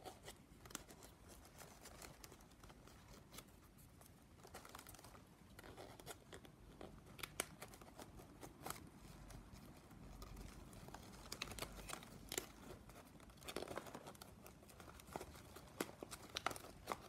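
Faint crinkling and small irregular clicks of plastic strapping band being slid and tucked through the weave of a bag.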